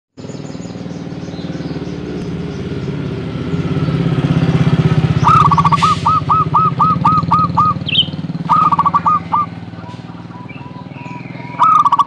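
Zebra dove cooing in rapid staccato runs of short, evenly spaced notes: a run of about nine notes about five seconds in, a shorter run near nine seconds, and another near the end. Underneath is the low rumble of an engine that swells in the middle and then fades, with a single higher bird chirp just before the second run.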